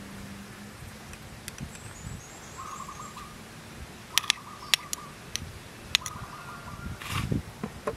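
A bird calling in the background: a short trilled call repeated three times, with a fainter high twittering about a second and a half in. Several light clicks of a spoon against a small ceramic bowl come in the middle as minced garlic is scraped into the dipping sauce.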